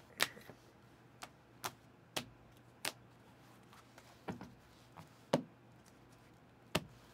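Hard plastic trading-card cases clicking and tapping as they are handled and set down on a table: about ten light, sharp clicks at irregular intervals.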